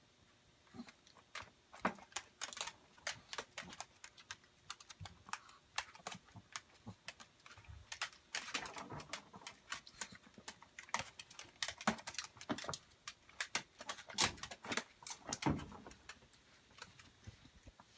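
Chihuahua eating at its bowl: quick, irregular clicks and crunches of mouth and teeth on food.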